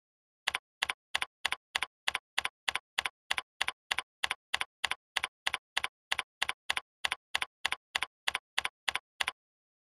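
Keyboard keystrokes clicking at an even pace, about three a second, as a web address is typed; the run stops shortly before the end.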